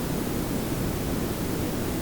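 Layered pink and brown noise: a steady, smooth hiss over a low rumble, unchanging throughout.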